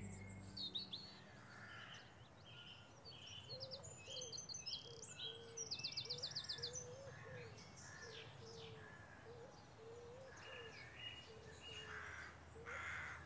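Birds singing and calling outdoors: scattered high chirps, with a fast trill of about a dozen notes about five seconds in, over a lower short call repeating roughly every half second.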